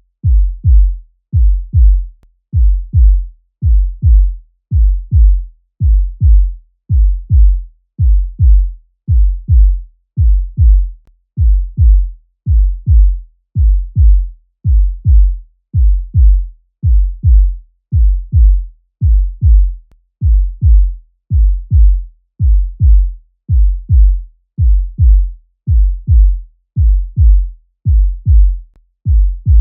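Human heartbeat sound effect: a steady lub-dub of two low, deep thumps per beat, repeating a little over once a second.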